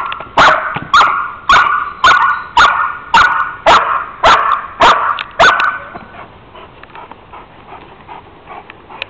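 Young German Shepherd barking steadily at a helper in a training blind, the bark-and-hold of protection work: a run of about ten loud, sharp barks, roughly two a second, that stops about five and a half seconds in.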